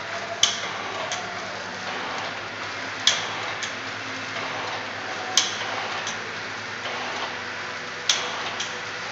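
Auger filler pouch packing machine running with a steady mechanical hum, broken four times by a sharp clack about every two and a half seconds, each followed by a softer click half a second later: the machine's repeating cycle as it forms and seals each masala pouch.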